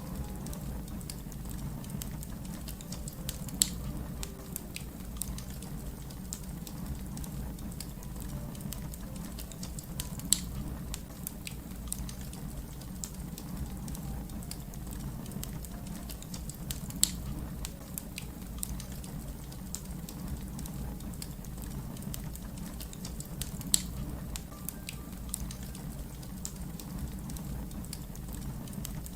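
Wood fire crackling over a steady low rumble, with four sharp, louder pops spaced several seconds apart.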